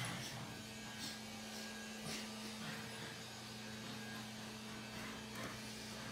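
A steady low electrical hum, with soft shuffling footsteps of sock feet on carpet coming and going over it.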